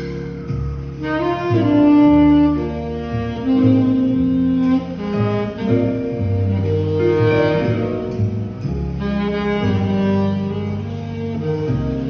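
Selmer R54 tenor saxophone with a Vandoren TL4 mouthpiece playing a slow ballad melody in long held notes, over an accompaniment with a bass line.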